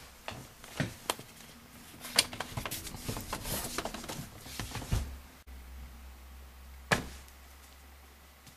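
Hardcover books being handled: a string of knocks, taps and scrapes as a thick book is pulled from a metal wire shelf and the books beside it shift, then a single sharp knock about seven seconds in as it is set down on a table.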